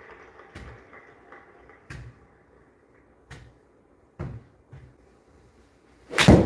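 A few faint clicks, then near the end one loud smack of a golf club striking a ball.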